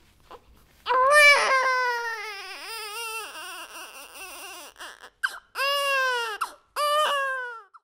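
A baby crying: a long, high, wavering wail about a second in, then two shorter falling cries near the end.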